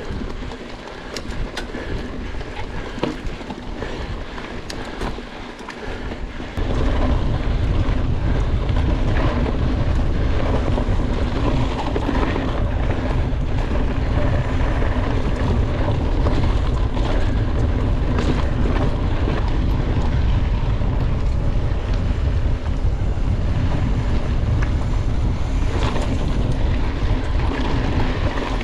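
Mountain bike being ridden hard on a trail, heard from a camera on the bike or rider: tyre and trail noise with many small rattles and clicks. About six seconds in, heavy wind rumble on the microphone comes in and stays.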